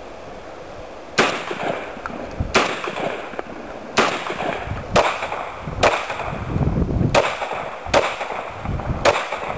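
A string of eight gunshots, roughly one a second, each with a short echo. The earlier shots are from a Saiga-12 semi-automatic 12-gauge shotgun. The last few are from a handgun.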